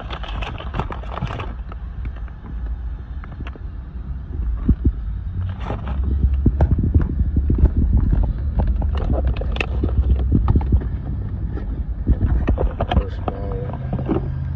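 Cardboard box and plastic-wrapped brake pads being handled: irregular crinkling, rustling and light knocks, over a steady low rumble.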